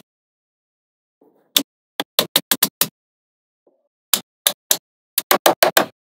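Small magnetic balls clicking as they snap onto one another, in quick runs of sharp clicks with dead silence between them.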